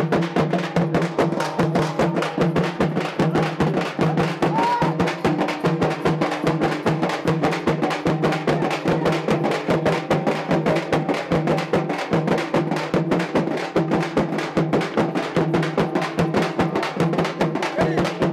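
Several frame drums (dappu) beaten with sticks together in a fast, steady rhythm, over a steady droning tone.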